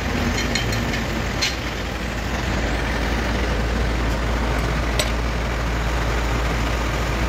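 Steady low hum and noise of a machine or engine running, with a few short light clicks about a second and a half in and again about five seconds in.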